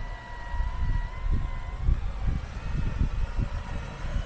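A steady motor whine that wavers slightly in pitch, over irregular low rumbling and buffeting.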